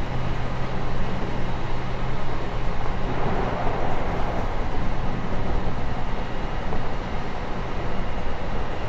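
Interior running noise of a JR Kyushu 813 series electric multiple unit under way: a steady rumble of wheels on rail with a constant low hum.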